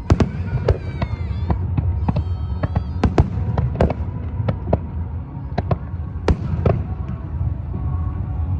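Fireworks going off in quick succession: a string of sharp bangs that thins out after about seven seconds, over a steady low background rumble.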